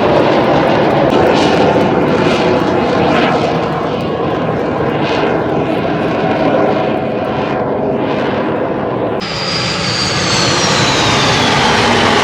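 Aermacchi MB-339 jet aircraft flying past, a loud steady rushing roar that swells and fades as the jets pass. About nine seconds in, the sound changes abruptly to a high whine that falls in pitch as a jet goes by.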